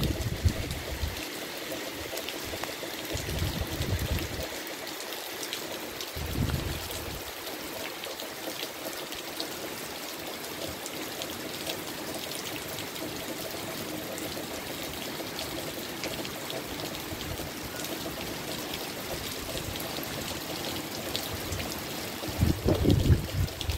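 Rain falling steadily on palms and garden foliage. Gusts of wind hit the microphone with a low rumble a few times, the longest near the end.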